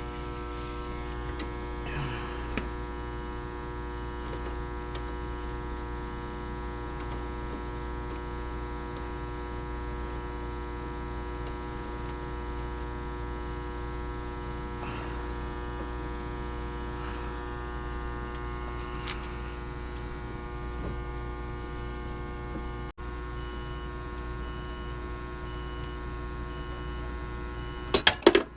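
Steady machinery hum with many even overtones, with a few faint taps and a quick cluster of sharp knocks near the end.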